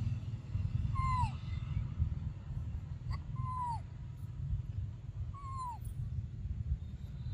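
Baby monkey giving three short high-pitched calls about two seconds apart, each holding its pitch and then dropping at the end, over a steady low rumble.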